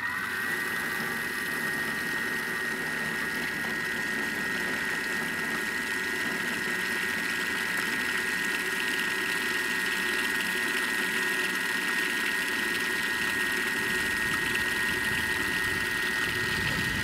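Thermomix food processor motor spinning up and then running steadily at speed 4 as it stirs and heats sauce hollandaise, a steady high whine.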